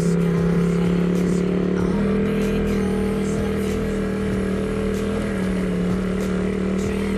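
Motorcycle engine running steadily under way. Its engine speed steps up about two seconds in and eases back a little about five seconds in.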